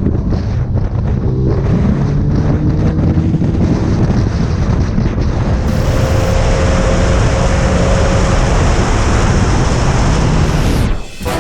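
Motorcycle riding at speed, with heavy wind buffeting the helmet-camera microphone and an engine note rising faintly beneath it in the first few seconds. After a cut about halfway through, a BMW S1000R ride follows, with the same wind roar over a steady engine tone.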